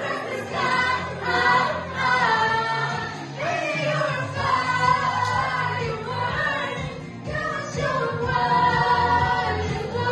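A group of voices singing together loudly into microphones over a backing track.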